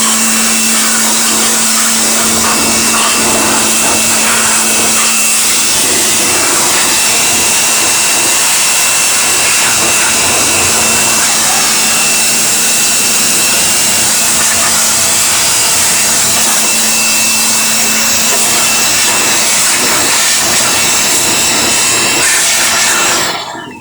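A high-speed electric dust-cleaning tool runs steadily and loudly with a constant whine, then switches off abruptly just before the end. It is clearing dust from a side-by-side refrigerator's condenser, which was clogged and keeping the fridge from cooling.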